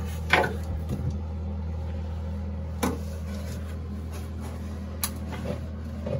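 A steady low mechanical hum, with a few short knocks and bumps scattered through.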